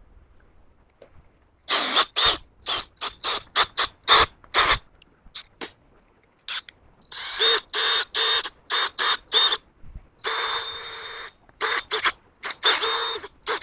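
Compressed-air blow gun blasting debris out of engine-block bolt holes in repeated bursts: a quick series of short blasts, then several longer ones, some with a whistle in them.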